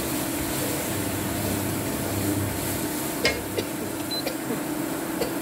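Beef stew in red wine boiling in an enamelled cast-iron pot, with a few soft pops about three to five seconds in, over a steady hum.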